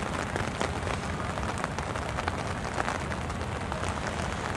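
Steady rain falling, with many small, sharp drop hits over an even hiss and a low rumble.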